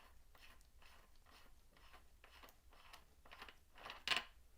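Faint repeated scraping and rubbing as the motorcycle's lower yoke and steering stem are worked down out of the steering head, with a louder knock about four seconds in.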